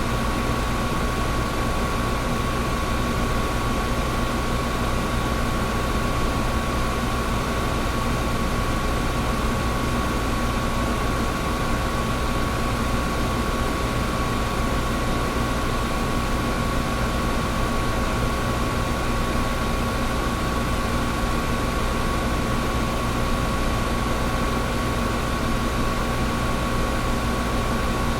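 Air conditioner running steadily: an even rushing noise with a constant hum and a faint whine, unchanging throughout.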